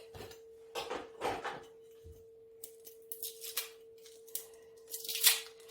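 An onion being peeled with a knife: scattered short rustles and scrapes of dry onion skin and blade, with a sharper knock about five seconds in.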